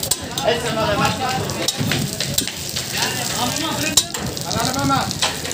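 Parathas frying in oil on a large flat griddle: a steady sizzle, with a few sharp clicks of metal tongs against the griddle as they are turned.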